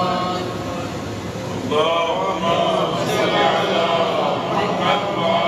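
A man chanting an Arabic supplication in a slow, melodic recitation voice. One phrase trails off, and a new one begins about a second and a half in, over a steady low hum.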